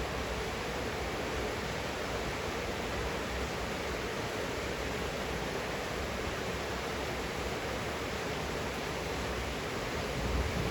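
Steady rain falling, an even hiss with no separate drops standing out. A low rumble begins to swell near the end.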